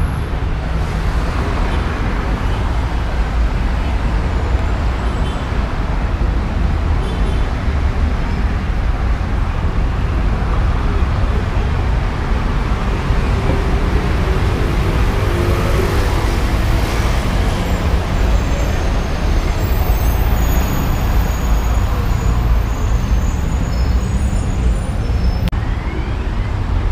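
Steady road traffic noise of cars running along a busy city avenue.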